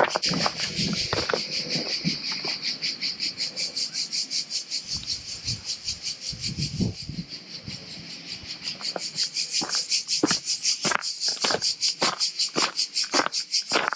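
Cicadas singing in the summer heat: a loud, high-pitched buzz pulsing rapidly and evenly, several pulses a second. Irregular low knocks and crunches come in toward the end.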